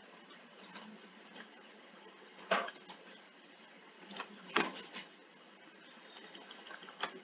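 Computer mouse clicks while editing in PowerPoint: a few scattered clicks, two louder ones about two and a half and four and a half seconds in, and a quick run of light ticks near the end, over faint hiss.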